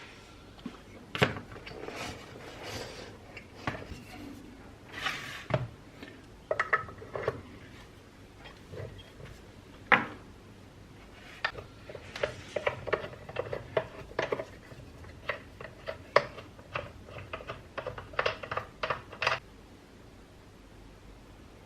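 Small metal parts and tools clinking, tapping and knocking against each other in irregular bursts, busiest in the second half and stopping a couple of seconds before the end.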